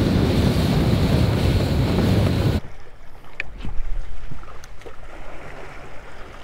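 Wind buffeting the microphone and water rushing past a boat under way on open water, cutting off abruptly about two and a half seconds in. After that, quieter water lapping with a few light clicks.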